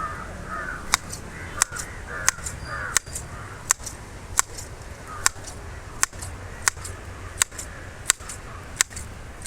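Freshly sharpened grass shears snipping grass: about a dozen crisp snips, evenly paced at roughly one every two-thirds of a second. Crows caw in the background during the first two seconds or so.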